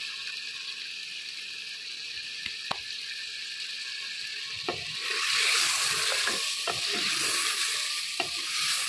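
Chicken pieces sizzling in ghee in a clay cooking pot, with a wooden spoon knocking and scraping against the pot as the chicken is stirred. The sizzle grows louder about five seconds in, once stirring starts.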